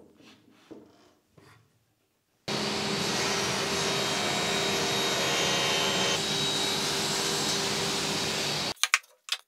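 A few light knocks of plywood set against a table saw fence. Then a sliding table saw runs with its dust extractor for about six seconds while a board is cut, starting and stopping abruptly. A few sharp clicks come at the very end.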